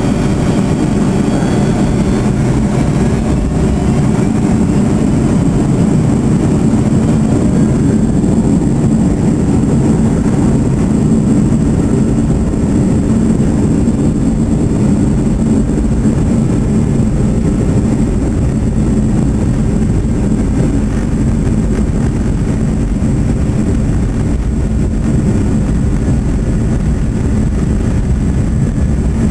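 Boeing 737-200's Pratt & Whitney JT8D turbofan engines running loud and steady, heard inside the cabin over the wing with a deep rumble, as the jet rolls onto the runway for takeoff.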